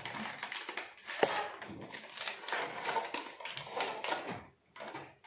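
Clear plastic packaging crackling and rustling against cardboard as a power bank's plastic tray is pulled out of its box, with irregular clicks and a sharper snap about a second in.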